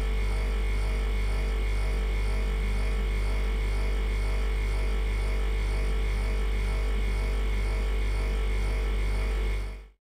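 Old freezer's compressor humming: a deep steady hum with a regular throb about twice a second and a faint higher whine over it. It fades out near the end.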